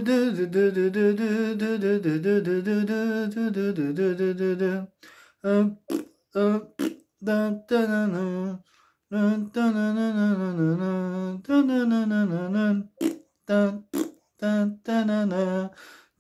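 Lip-buzzed mouth-fart sounds carrying a lively folk-dance melody. A held, continuous phrase gives way to a run of short clipped notes and then to longer phrases again.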